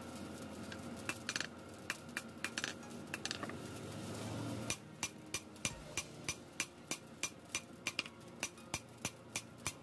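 Hand hammer striking a red-hot steel machete blade on a steel anvil block: sharp metallic blows, uneven at first, then a steady rhythm of about three a second from about halfway. A low rumble underneath stops suddenly about halfway through.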